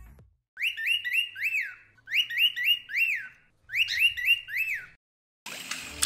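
High whistled chirps in three short bursts of about four notes each, every note sliding up then down. Near the end, water starts pouring and trickling.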